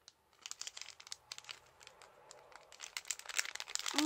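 Plastic packaging bags crinkling as they are handled, a scatter of crackles that gets denser and louder in the second half.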